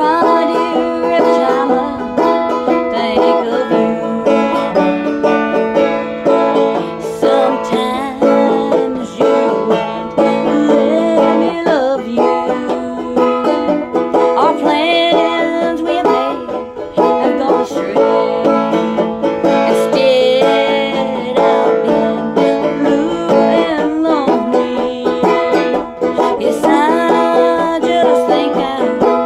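Banjo picking a traditional bluegrass tune, a steady run of quick plucked notes with no singing.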